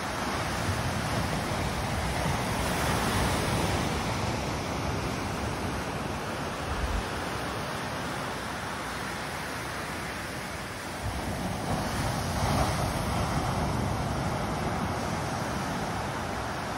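Small waves breaking and washing up a sandy beach: a steady surf hiss that swells twice as waves roll in.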